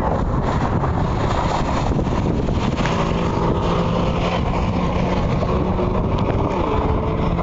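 A car engine running steadily under a heavy rumble of road and wind noise, with wind buffeting the microphone.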